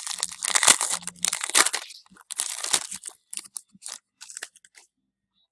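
A baseball card pack's wrapper being torn open and crumpled, a crinkly tearing for about the first three seconds, then lighter rustles and ticks as the cards are handled.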